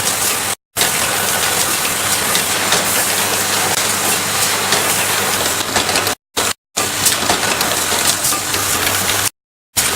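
Automated factory machinery making mechanical keyboard switches: dense rapid clicking and mechanical clatter over a steady hum. It drops out into dead silence briefly near the start, twice around six seconds in, and again near the end.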